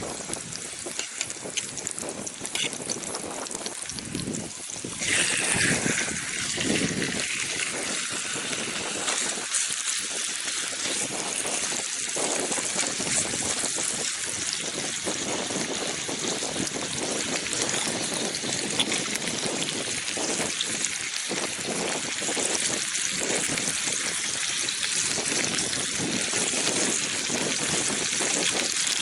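Steady rushing and trickling water, growing fuller and louder about five seconds in, then running on evenly.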